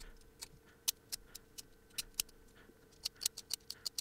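Enamel being scraped off the end of a short piece of magnet wire with a small razor blade, so it will take solder: a run of faint, irregular sharp scratches and clicks, several a second.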